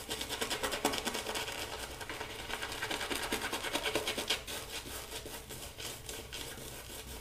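Shaving brush with a dense synthetic B7 knot being worked over a lathered face: a soft, wet scrubbing of bristles through shaving lather in quick, repeated strokes.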